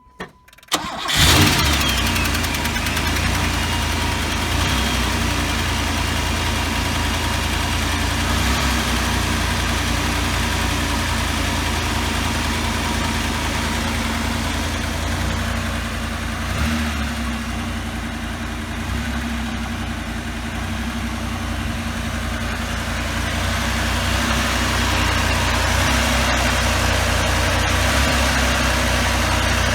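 1984 Pontiac Trans Am V8 cold-starting after sitting for years: a brief moment of cranking, then it catches about a second in with a loud flare and settles into a steady idle.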